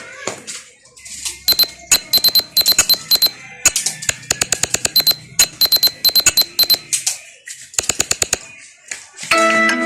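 A phone ringtone made of rapid, sharp clicks in quick runs, with thin high beeping tones over them. Near the end it gives way to a different, melodic ringtone of held bell-like notes.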